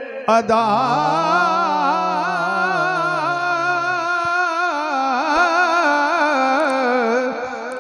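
Naat recitation: a male voice holds one long, wavering sung note with heavy vibrato, without words. A lower held tone sounds beneath it for the first few seconds.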